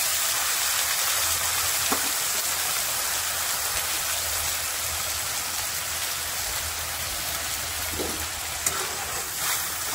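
Ground spice paste sizzling steadily in hot oil in a pan, just after a splash of water was added; the sizzle slowly dies down.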